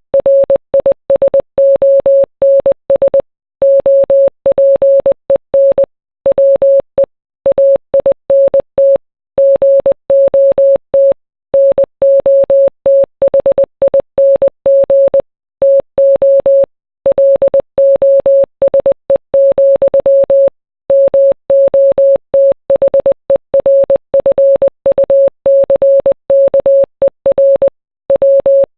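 Morse code: a single mid-pitched beep tone keyed on and off in short dots and longer dashes, with brief gaps between letters and longer pauses between words, spelling out a song's lyrics.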